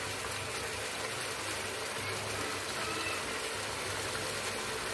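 Chicken in yogurt-masala gravy bubbling and sizzling in a non-stick pan over a high gas flame: a steady hiss with a low hum underneath.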